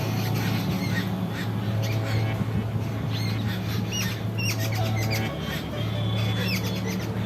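Birds calling with repeated short, arching chirps over a steady low drone.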